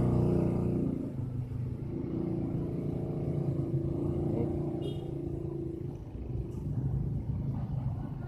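Steady low rumble of a motor vehicle engine running, louder for the first second and then settling lower.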